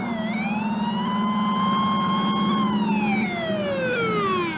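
Emergency vehicle siren wailing: its pitch dips, climbs back and holds, then falls away steadily over the last couple of seconds as it winds down, over a low steady hum.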